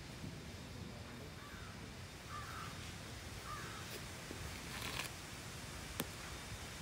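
A crow cawing three times, about a second apart, over a steady low outdoor rumble. A short rustle and a single sharp click follow near the end.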